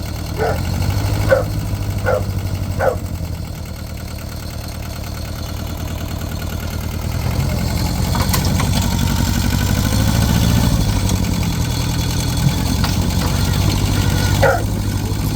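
A motor vehicle engine running steadily at idle, picking up somewhat around the middle. Short high chirps repeat about once a second during the first few seconds and again near the end.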